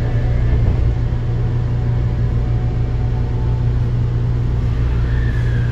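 Osaka Metro 22 series subway car running, heard from inside the car: a steady low hum and rumble of the moving train. Near the end a thin tone slides down in pitch.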